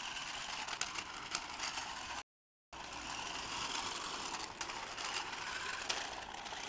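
Toy quad bike's small motor and gears whirring as its plastic wheels roll over brick paving, with scattered clicks and rattles. The sound cuts out completely for about half a second a little over two seconds in.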